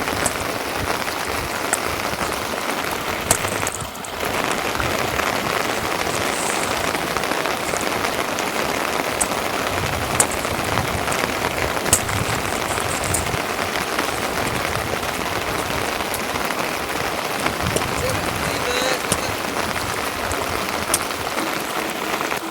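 Steady rain falling, an even hiss with scattered sharp ticks of drops. It drops away briefly about four seconds in.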